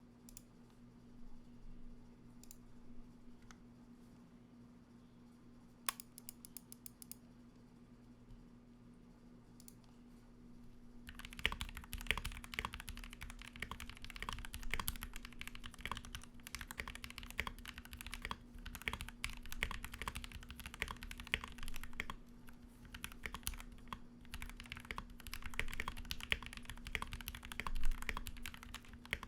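Typing on a custom Royal Kludge RK68 keyboard with lubed Gateron Milky Yellow linear switches, PBT keycaps, case foam, a taped PCB and band-aid-modded stabilizers. For about the first eleven seconds only scattered key presses and one quick run of presses, then steady fast typing; a faint steady hum underneath.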